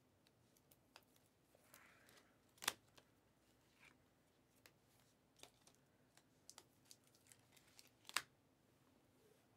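Faint clicks and flicks of Panini Mosaic basketball cards being handled and slid one by one through the hand, with two sharper clicks, one about two and a half seconds in and one near the end.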